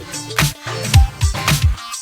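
Electronic dance background music with a steady kick-drum beat and a bass line.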